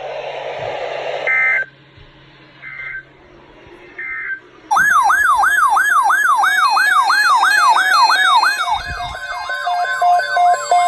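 Three short bursts of EAS end-of-message data tones, a little over a second apart, closing a weather-radio warning broadcast. About five seconds in, a loud electronic siren-like alert tone starts, sweeping up and down about three times a second, then changes to a faster warble with a pulsing steady tone.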